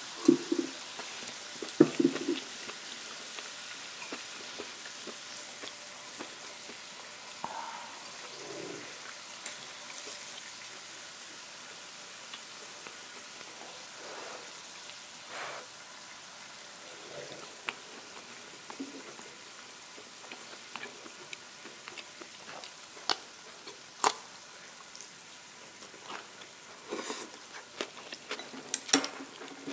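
Korean beef sizzling steadily on a tabletop grill pan, under close-miked eating sounds: two loud bites and chews near the start, then scattered sharp clicks and mouth noises, more of them near the end.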